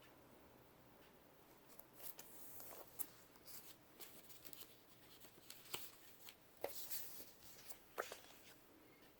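Faint rustling and light taps of paper sticker sheets being handled and laid down, a few soft clicks scattered through, the loudest near the middle and near the end.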